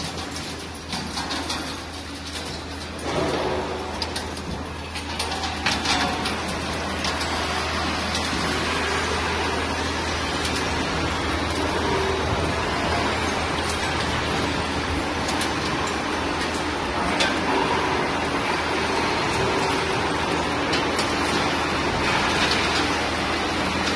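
Scrap-metal processing line machinery running: a steady motor hum under broad mechanical noise, with scattered metallic clicks and rattles. The noise steps up about three seconds in and then holds steady.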